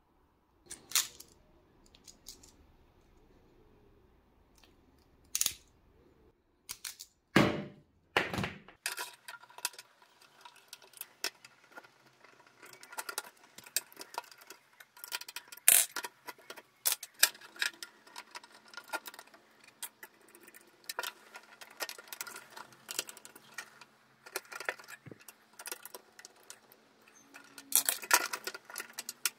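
Irregular sharp clicks, taps and small rattles of wires with crimped ferrules and plastic DIN-rail breakers and a changeover switch being handled and fitted in an electrical panel. A few separate knocks come first, then the clicking gets denser from about nine seconds in.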